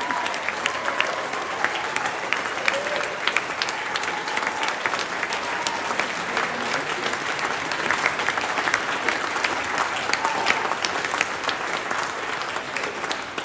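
Audience applauding: the clapping of many hands, beginning to die down near the end.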